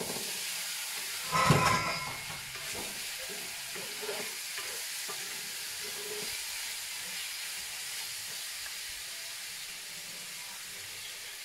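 Chicken pieces tipped into a hot wok of sautéed onions, with a loud burst of sizzle and clatter about a second and a half in, then steady frying sizzle while a wooden spatula stirs the meat.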